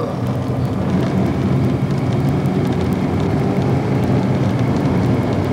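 Steady rushing background noise with a low hum and faint crackle, without any speech.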